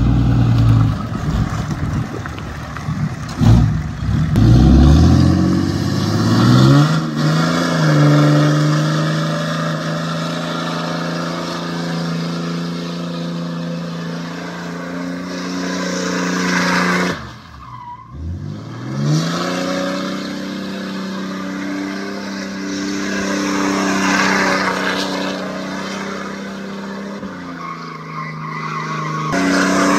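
Lifted fourth-gen Ram pickup doing donuts: the engine is held at high revs while the tyres spin and scrub on concrete. It revs up over the first few seconds and holds steady, drops off sharply about 17 seconds in, then climbs back up and carries on.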